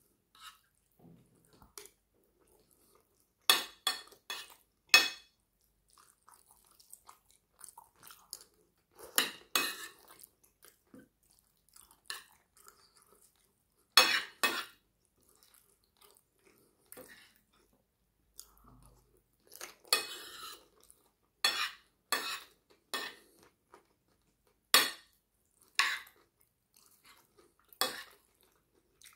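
Metal fork and spoon clinking and scraping against a plate at irregular intervals, with soft chewing between the clinks.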